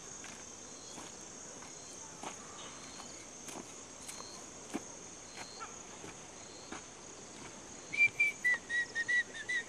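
Steady high-pitched insect buzz, cricket-like, with faint scattered ticks over it. About eight seconds in, a run of short, loud chirping notes starts, two or three a second.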